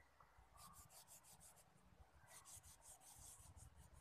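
Faint scratching of a wax crayon rubbed quickly back and forth over paper, several strokes a second, with a short pause around two seconds in.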